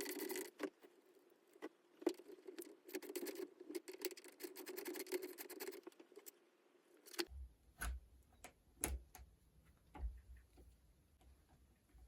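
Socket ratchet clicking rapidly while loosening the lock nut under a Kawasaki KLX140R F's clutch lever. About seven seconds in it gives way to a few separate clicks and taps.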